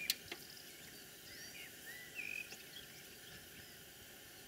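Small garden birds chirping and twittering in short swooping calls, with a sharp click just after the start and a fainter one soon after.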